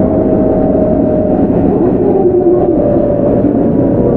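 Running sound of a Keihan 9000 series electric train with Toyo GTO-VVVF traction, recorded aboard. Steady rumble of wheels and motors, with a thin motor tone sliding slowly lower in pitch.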